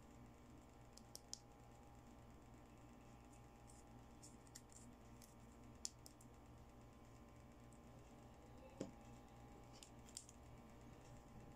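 Faint, scattered clicks and taps of small plastic toy accessories being picked up, handled and set down, over a low steady hum.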